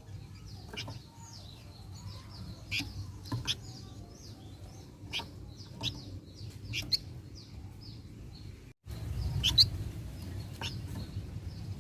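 Flamboyan songbird calling: a quick series of short, high, falling notes, about three or four a second, with sharper chirps in between. The sound cuts out for a moment near nine seconds in, then resumes louder.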